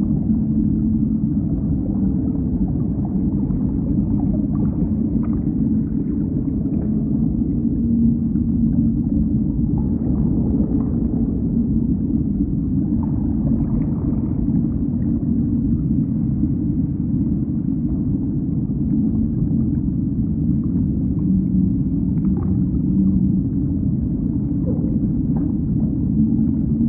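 Underwater ocean soundscape, remixed: a dense low rumble with a low hum that swells and fades, and faint whale-like calls above it.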